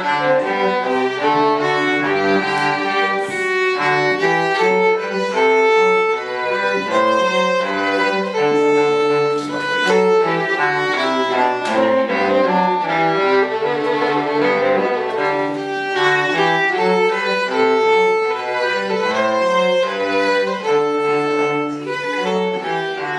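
A violin and cello duo playing: a melody of held, bowed notes over a moving cello line.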